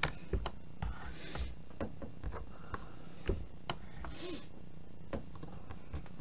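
Irregular light clicks and taps with two brief rustles, from handling things on a desk, over a steady low hum.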